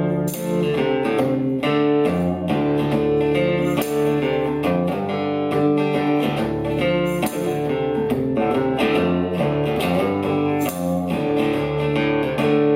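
Live instrumental break in a Gothic Americana song: guitar strummed and picked in a steady rhythm, with no singing.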